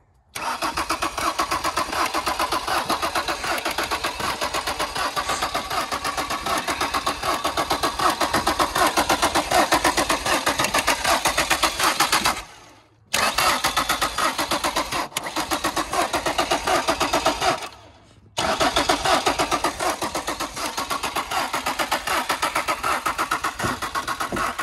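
Ford Escape's engine cranking on its starter without catching, in three long tries of about twelve, five and six seconds with short pauses between. The owner suspects a torn-off fuel line or a failed fuel pump.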